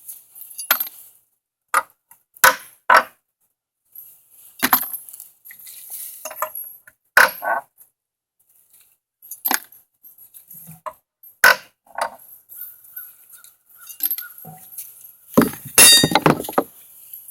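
Nails being pulled from wooden pallet braces with a metal tool: sharp metal-on-metal clinks and knocks at irregular intervals, with a louder run of them near the end.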